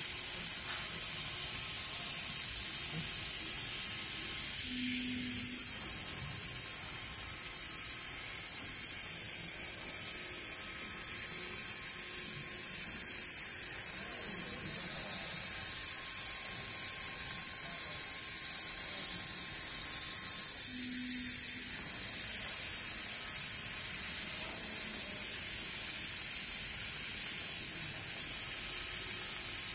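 Large computer-controlled pattern sewing machine stitching a leather panel in a clamping frame: a steady high-pitched hiss over a motor buzz, with two brief breaks, about five and about twenty-one seconds in.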